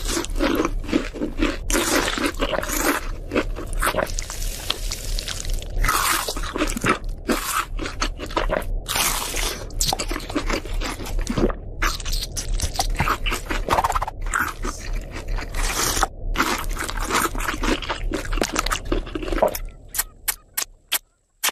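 Fried chicken being bitten and chewed: loud repeated crunching with short breaks between mouthfuls. It ends with a few short, sharp smacks as fingers are licked.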